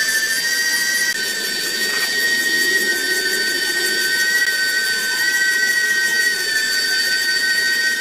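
Small DC hobby motors driving a miniature rubber conveyor belt: a steady high-pitched electric whine that shifts slightly in pitch about a second in.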